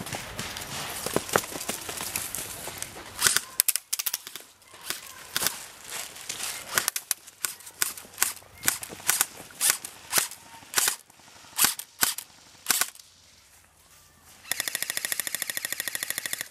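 Airsoft electric guns firing: a stretch of dense, overlapping fire, then scattered single sharp shots. About two seconds before the end, a close M4-style electric airsoft rifle fires a loud, even full-auto burst, its gearbox cycling in a rapid rattle.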